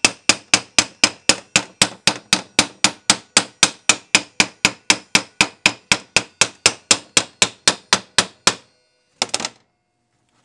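Chipping hammer rapidly striking a fresh E6011 stick weld on steel angle iron to knock off the slag: an even run of sharp metal-on-metal strikes, about four to five a second, that stops about eight and a half seconds in. A brief clatter follows near the end.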